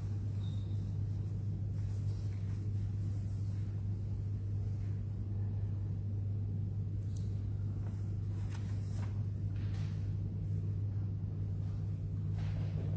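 Steady low hum, with a few faint rustles and soft taps during a silent pause.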